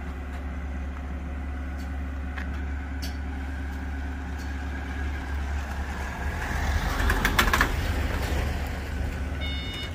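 A vehicle engine idling steadily with a low hum. About six and a half seconds in, a van drives past close by and the sound swells for a second or two.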